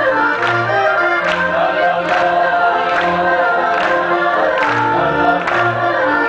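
A group of men singing a Polish folk song in chorus over instrumental accompaniment, with an alternating bass line and a steady beat.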